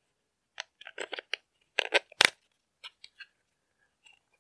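A run of short, sharp plastic clicks and knocks as batteries are pressed into the battery holder of a handheld electronic yarn counter and its plastic case is closed, with one louder snap a little past the middle.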